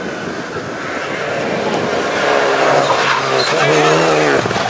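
Renault Clio rally car's engine coming closer and growing louder, its pitch rising and falling as the driver works the throttle through a corner.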